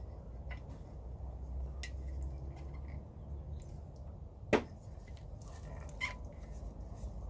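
Small handling noises from refitting a pocket bike's rubber fuel line and fuel filter: faint clicks and rustles, with one short sharp sound about four and a half seconds in and a smaller one about a second and a half later, over a low steady hum.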